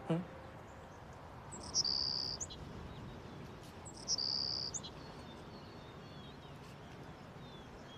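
An insect trilling twice, two short, high, steady trills each under a second long and about two seconds apart, over faint steady background noise.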